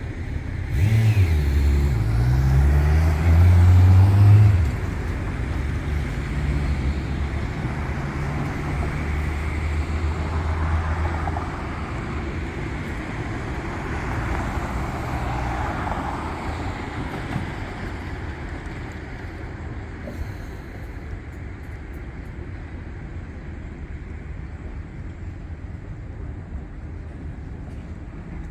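Street traffic in which a motor vehicle pulls away close by. Its engine rises in pitch and is loudest over the first few seconds, then drops to a steadier hum. About ten seconds in, it fades into the general noise of the road.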